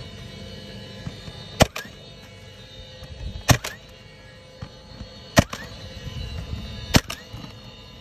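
DeWalt cordless nail gun driving four roofing nails through asphalt shingles, one every second and a half or two. Each shot is a sharp crack followed by a short rising whine.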